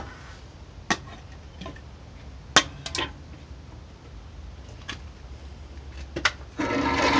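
A handful of light clicks and knocks of metal parts being handled, then about six and a half seconds in the milling machine's spindle motor starts and runs with a steady whine.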